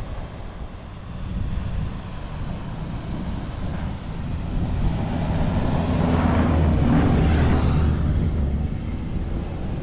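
Toyota Prado four-wheel drive's engine working under load in soft sand on a steep hill. It builds to its loudest about two-thirds of the way in, a steady low engine drone with a rush of noise over it, then eases off.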